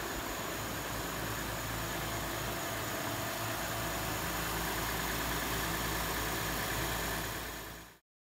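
Second-generation Lexus IS engine idling steadily, with the DRLs lit and a steady outdoor hiss around it; the sound cuts off suddenly near the end.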